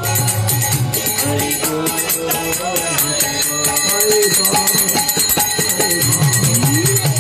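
Devotional kirtan music: voices singing over steady, rhythmic jingling hand percussion.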